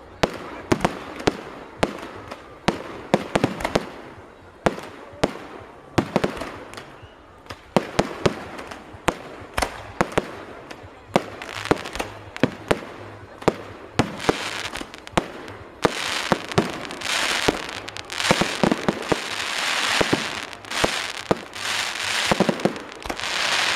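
Fireworks going off in a rapid series of sharp bangs, a few a second. About halfway through, a dense crackling sets in under the bangs and grows louder toward the end.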